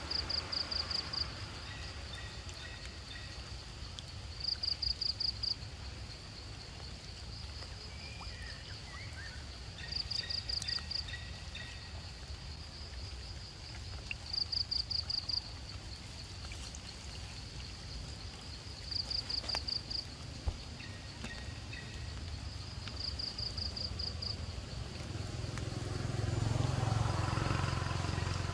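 A high-pitched pulsed trill of about a second, repeated every four to five seconds, from a calling animal, over a steady low hum. Near the end a low engine drone swells, a distant motorbike.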